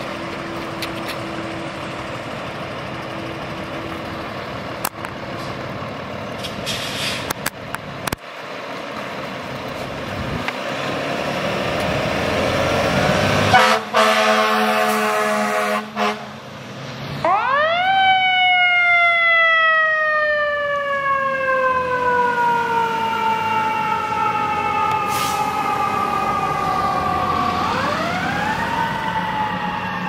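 Fire apparatus engines running, then a loud air horn blast lasting about two and a half seconds about halfway through. After it a siren winds up sharply, slides slowly down in pitch for several seconds, and winds up again near the end.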